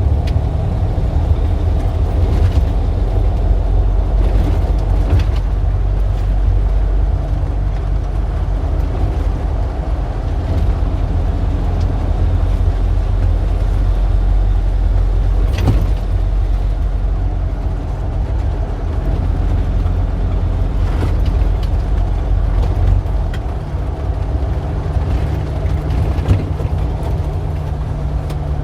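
Street traffic: motor vehicle engines running with a continuous low rumble and steady hum. A single sharp click sounds about halfway through, and the low hum drops and shifts a little after about 23 seconds.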